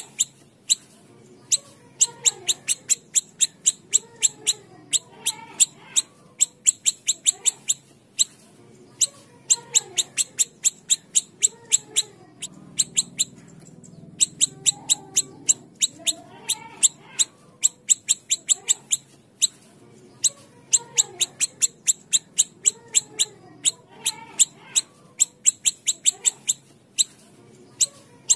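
Siri-siri kecil bird calling: long runs of sharp, rapid ticking notes, about five a second, in bouts of a few seconds with short pauses, over softer lower gliding notes.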